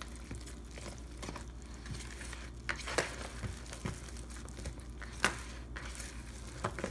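Plastic spatula stirring a thick, sticky flour-and-milk dumpling batter in a plastic bowl: soft scraping and squishing, with a few sharper knocks of the spatula against the bowl, the loudest about five seconds in.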